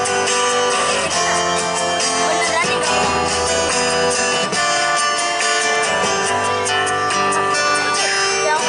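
Live band music in an instrumental passage between sung lines: an amplified acoustic guitar strums chords that change about every second, without vocals.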